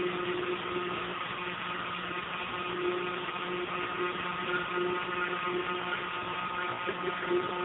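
Hydraulic pump of a Forney concrete testing machine running with a steady hum, applying a small seating load to a concrete beam in the flexure test fixture.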